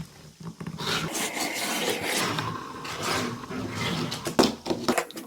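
Rasping, scraping rub made by hands working at a toy or its packaging, going on in many small strokes for several seconds.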